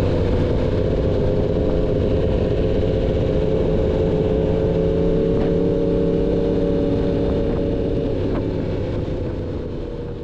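Yamaha MT-10's crossplane inline-four running through an SC Project full exhaust system at a steady, nearly constant engine speed. The sound eases off about eight seconds in and fades out at the end.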